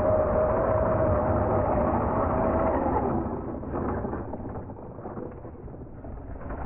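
Electric motor and gear drive of a scale RC Land Rover Defender crawler whining steadily under power as it climbs a mound of loose dirt. About three seconds in the whine drops away, followed by scraping, crumbling dirt and light knocks as the truck tumbles over onto its roof.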